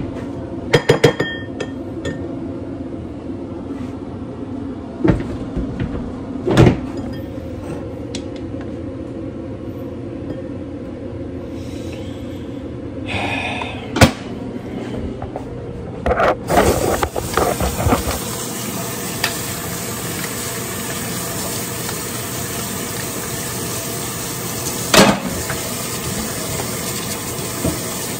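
A few sharp knocks of pots and utensils over a steady hum, then a little over halfway through a kitchen tap starts running water steadily into a sink or pot, with more clatter at its start and one knock near the end.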